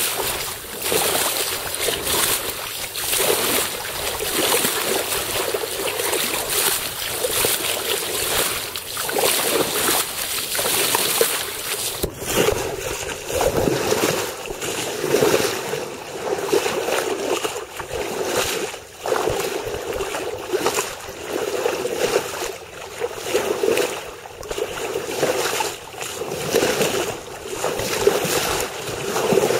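Water rushing and splashing along the hull of a sailboat under way, under a steady hiss. The sound changes abruptly about twelve seconds in, after which the water comes in surges that swell and fade every second or two.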